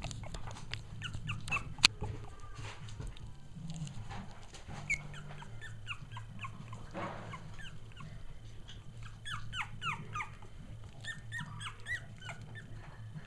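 Three-week-old Cavalier King Charles Spaniel puppies squeaking and whimpering as they wrestle: many short, high squeaks, coming thickest in the second half. A sharp click about two seconds in, over a steady low hum.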